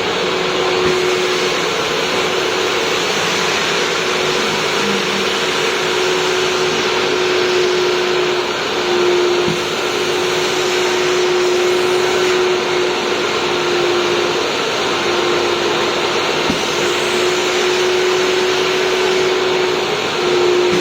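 3600 W wet-and-dry industrial vacuum cleaner running steadily: a constant rush of air over a steady hum.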